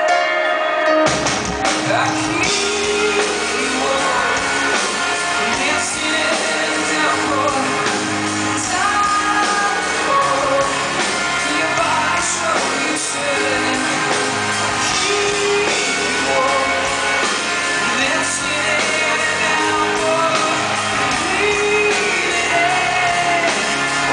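Live rock band performing with a male lead singer, heard from the audience in a concert hall. The full band, with its bass and drums, comes in about a second in under the sustained vocal and keyboard.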